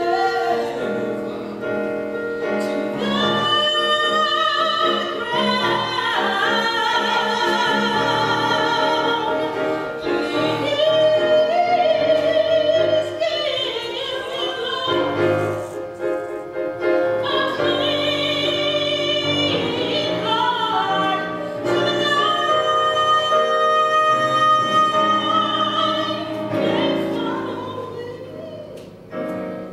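A woman singing a gospel solo in a strong, full voice with wide vibrato, over sustained harmony held underneath.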